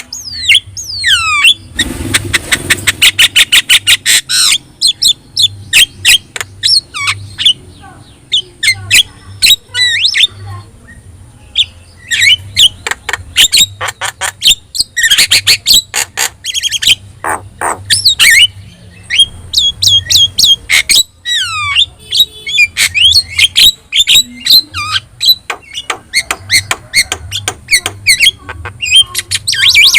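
Javan myna singing a long, varied song: rapid chattering runs of short notes, harsh squawks and whistles sliding down in pitch, broken by brief pauses.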